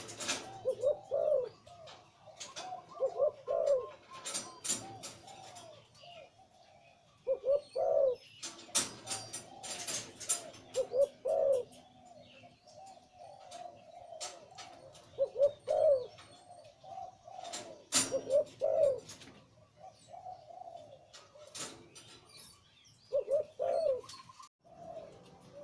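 Male zebra dove cooing in repeated short, rolling phrases, the 'liw-tan' deep-voiced song that Thai dove keepers breed for. Sharp high chirps or clicks come in between the phrases.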